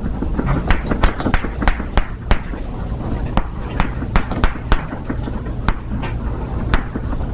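Chalk tapping and knocking against a chalkboard as words are written: an irregular run of sharp clicks, several a second, over a steady low hum.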